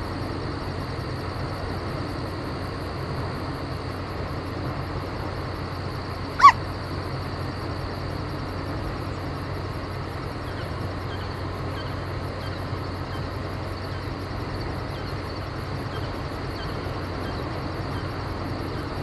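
Steady running noise of a car being driven. About six and a half seconds in, one short high-pitched squeal cuts through it.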